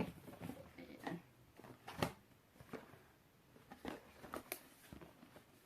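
Faint clicks and rustles of small cardboard boxes and packaging being handled and opened by hand, with a sharper click about two seconds in.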